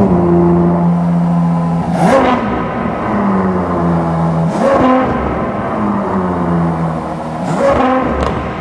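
Ferrari 812 GTS's naturally aspirated 6.5-litre V12 idling, blipped three times, each rev rising and falling back to idle, about two, five and eight seconds in.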